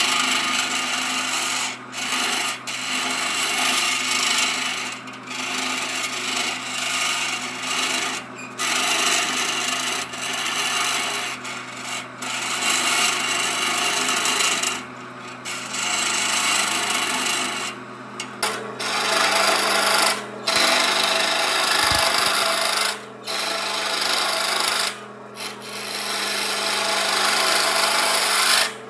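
Wood being sanded: a dry, abrasive rasping in passes of one to three seconds, each broken by a brief pause, over a faint steady low hum.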